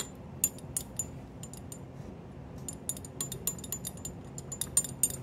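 Stirring rod clinking and scraping against the inside of a glass test tube in quick, irregular light ticks, busiest in the second half. This is hydrochloric acid being stirred into a dark precipitate.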